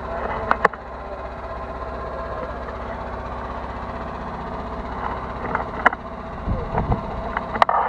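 A truck engine running steadily as its rear-mounted hoist lifts a large stone block onto the truck bed. A few sharp knocks break in, and there is a low thump past the middle.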